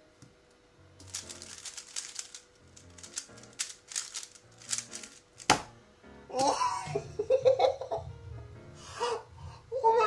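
A speed cube (MoYu Weilong WR M 3x3) being turned very fast, a rapid clatter of clicks lasting about four and a half seconds. It ends in one sharp slap on the keyboard's space bar that stops the timer. Excited laughing and vocalising follow, louder than the cube, over background music.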